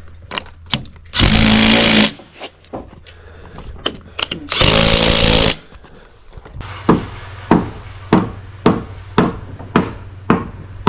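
A power tool, most likely a hammer drill boring into the blocks, runs in two short bursts of about a second each. Later a low steady hum sets in under a regular run of sharp strikes, about two a second.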